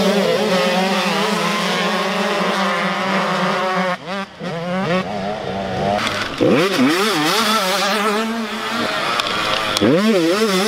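Small youth dirt bike engines running hard. Their pitch swings up and down sharply several times as riders work the throttle through a corner and pass close by.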